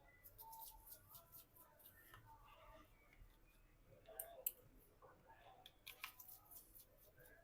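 Faint scattered clicks and ticks of a small screwdriver taking the screws out of a smartphone's opened back, with one sharper click about four and a half seconds in.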